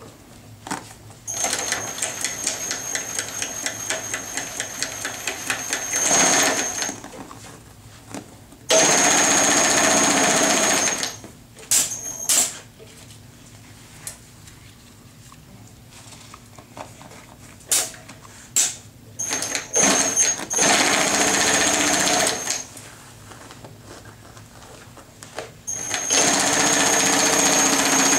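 Union Special 80700 industrial chainstitch sewing machine, driven by a servo motor, sewing heavy artificial turf in four runs of a few seconds each. Each run starts and stops sharply with a rapid stitching rhythm and a thin high whine. A few clicks come in the pauses.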